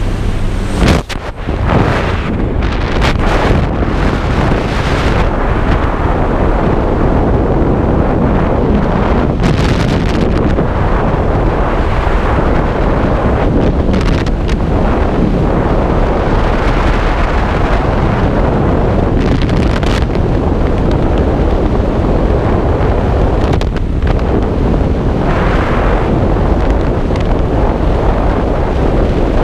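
Loud, steady rush of freefall wind buffeting the camera microphone. In the first second the jump plane's engine drones through the open door, cut off by a brief dip at the exit.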